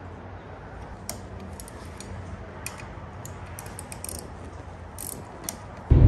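Hex-bit driver tightening the stem clamp bolts on a carbon mountain-bike handlebar, with scattered small metallic clicks and ticks over a low steady hum.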